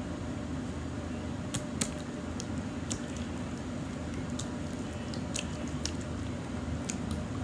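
Jiggly slime squishing under the hands, with short sticky clicks and pops about once a second, over a steady low hum.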